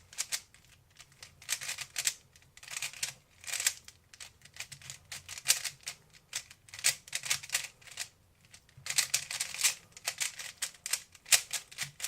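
A 3x3 speed cube being turned fast by hand: rapid runs of clicking and clacking plastic layers, broken by short pauses.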